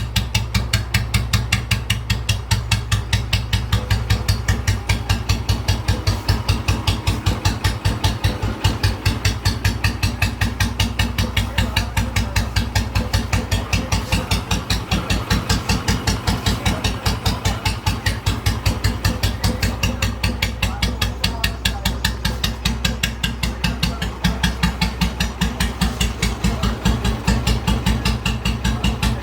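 Restored Royal Enfield Bullet Electra 5S single-cylinder engine idling with a steady, even thump, about five or six beats a second.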